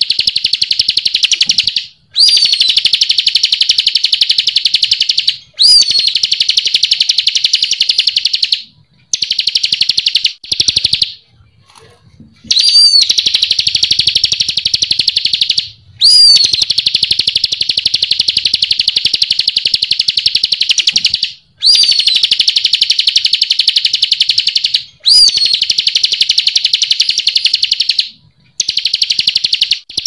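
Ciblek kristal (a prinia) singing: a loud, very rapid, high-pitched trill delivered in bouts of about three to five seconds. Each bout opens with a short up-and-down slurred note, and the bouts are separated by brief pauses, with a longer break a little before halfway.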